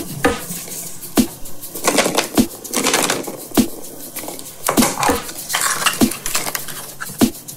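Hollow plastic toy egg being handled and prised open: a run of sharp plastic clicks and knocks with rustling and scraping in between as its two halves are worked apart.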